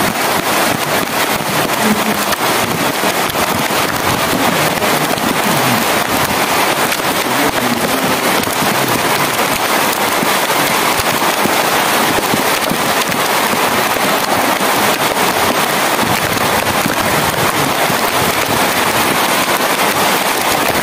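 Heavy rain falling steadily, a dense crackle of drops hitting a surface.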